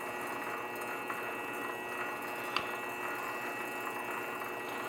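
Grizzly G0768 benchtop metal lathe running at steady speed, a constant hum with several steady tones, while a paintbrush is held to the spinning bottle. A light click about two and a half seconds in.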